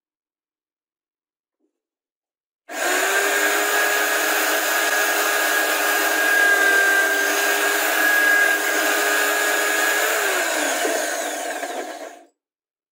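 Homemade drill press running and drilling holes through a plywood block: a steady motor whine over the noise of cutting. It starts suddenly about three seconds in, its pitch drops near the end, and it cuts off shortly before the end.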